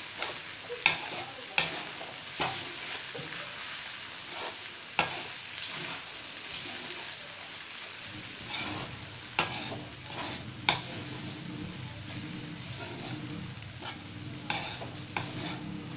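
A spatula stirring poha (flattened rice) in a metal kadhai over a steady low sizzle. It scrapes the pan and clinks sharply against it at irregular moments, a few times in the first three seconds and again around the middle.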